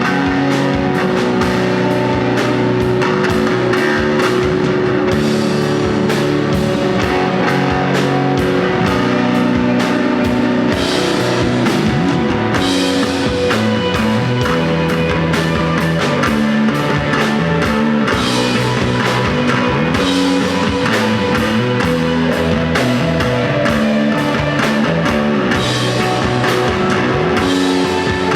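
Rock band playing live: electric guitar and drum kit, with regular drum and cymbal strokes over sustained low notes that shift every second or two.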